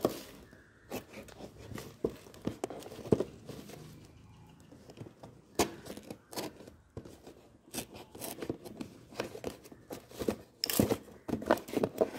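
Thin cardboard box being cut and worked by hand: irregular sharp clicks, short scrapes and tearing of the cardboard as a slot is cut in its top.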